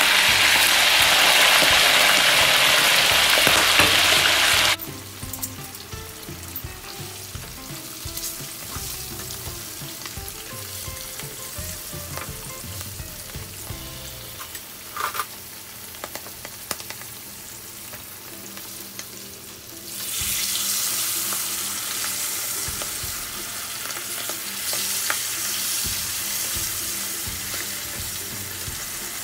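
Salmon steaks frying in hot oil in a pan, sizzling loudly for the first few seconds. About five seconds in the sizzle drops suddenly to a quieter level, then rises again about twenty seconds in.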